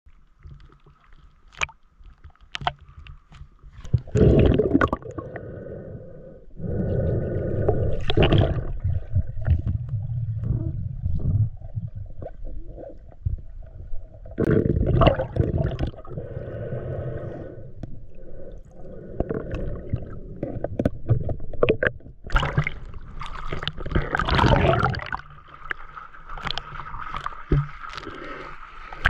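Lake water sloshing, splashing and gurgling around a freediver as he swims at the surface and dives under, in irregular loud bursts over a low rumble.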